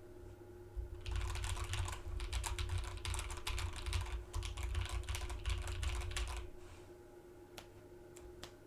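Typing on a Drop Alt mechanical keyboard with hand-lubed Drop Holy Panda v2 tactile switches: a fast, continuous run of keystrokes that stops about six and a half seconds in, followed by a few single key presses.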